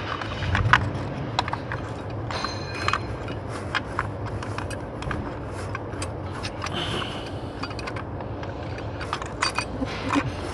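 Metal tools and engine parts clinking, tapping and scraping in irregular knocks while a fuel injector's retaining plate and bolt are fitted, with a short metallic ring between two and three seconds in.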